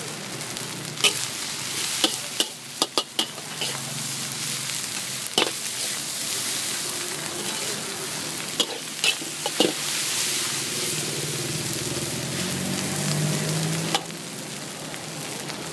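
Chicken and egg fried rice sizzling in a large wok while a metal spatula stirs and scrapes it, with sharp clinks of the spatula striking the wok about a dozen times.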